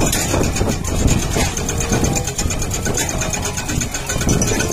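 Hydraulic rock breakers on Komatsu PC210 excavators hammering rubble in rapid, steady strokes over the machines' running diesel engines.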